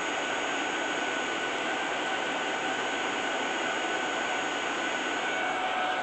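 Ultenic U12 Vesla cordless stick vacuum running steadily: a constant motor whine over rushing air.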